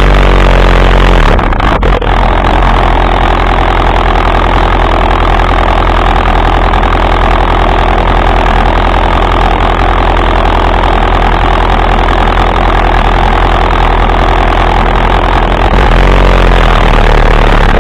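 ATV engine running steadily close by, with a slight rise in level near the end.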